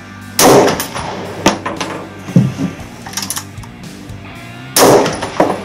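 Two rifle shots from a scoped hunting rifle, about four seconds apart, each a sharp, very loud crack with a short echoing tail, part of a five-shot string fired back to back without cooling. Lighter metallic clicks between the shots, as the action is cycled for the next round.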